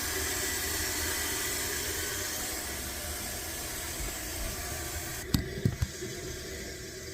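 Toilet tank refilling through its fill valve: a steady hiss of water that slowly weakens. A few sharp clicks about five seconds in, after which the hiss is quieter.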